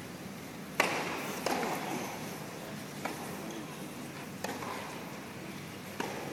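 Tennis rally: a ball struck back and forth by rackets, five sharp pops spaced about every one and a half seconds, the loudest about a second in, over a steady arena crowd murmur.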